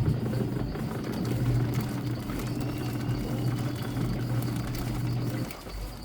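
Washing machine motor running steadily with a low hum during a wash stroke, starting at once and cutting off about five and a half seconds in.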